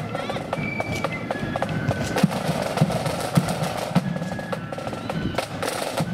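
Marching band drums: snare drums rattling out a marching beat, with low drum strokes at a steady walking pace.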